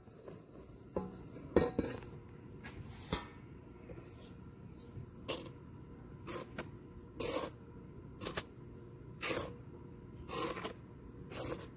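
A spatula folding flour into cookie batter in a mixing bowl, knocking and scraping against the bowl in short strokes about once a second.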